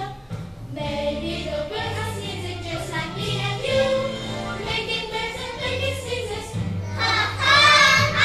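A group of children singing together over instrumental accompaniment with held bass notes. About seven seconds in, the voices get louder and higher.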